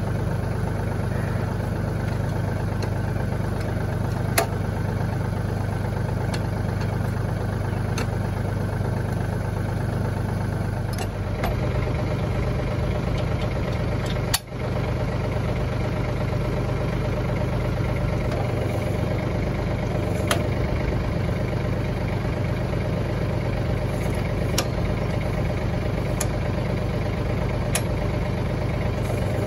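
Tractor engine idling steadily, with occasional light metal clinks as the sickle bar mower's hitch links and pins are handled.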